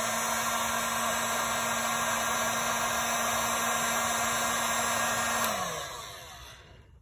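Hot air gun running steadily with a fan hum and a rush of air, shrinking heat-shrink tubing over a soldered wire joint. It is switched off about five and a half seconds in, and the hum drops in pitch and fades as the fan winds down.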